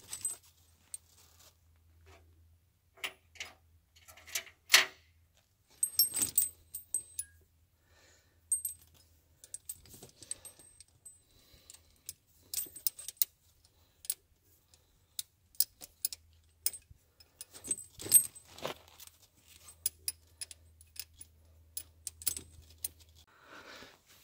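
Steel links of Trygg studded Ice and Forestry tire chains clinking and rattling as the side chain is handled and hooked up by hand: irregular sharp metallic clinks, sometimes several close together.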